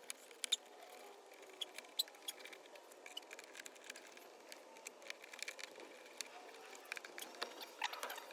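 Faint, irregular small clicks and taps of hands handling and fitting a plastic window switch into a car door panel.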